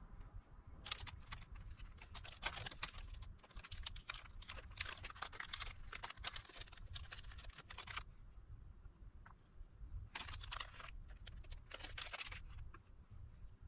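Scratching and light clicking of a small hand tool working on a circuit board, in two spells with a pause between.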